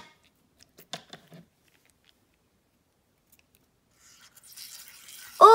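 A few faint handling clicks about a second in. Then, near the end, a faint hiss as scissors cut into a small liquid-filled rubber balloon.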